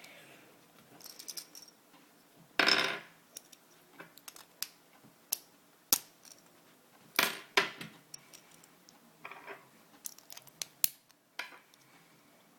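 Hands handling a Beyblade spinning-top toy: scattered sharp clicks and taps of small hard plastic and metal parts, with two louder rustling bursts lasting about half a second each.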